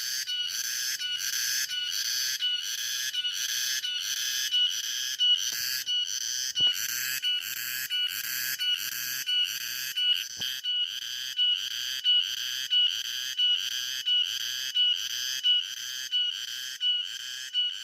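Cicada chorus: a loud, rhythmic pulsing buzz at about two to three pulses a second over a steady high-pitched drone.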